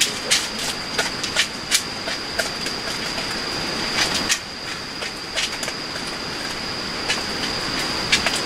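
Two dogs eating dry kibble from bowls, with irregular sharp crunches and clicks of food against the bowls. Under them is a steady hiss, likely rain on the tent, and a constant faint high whine.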